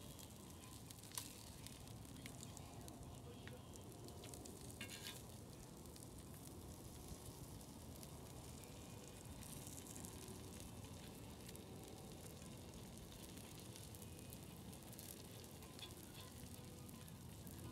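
Slices of meat frying on a hot griddle, a quiet steady sizzle. A few sharp clicks of metal utensils against the griddle come about a second in and again around the middle.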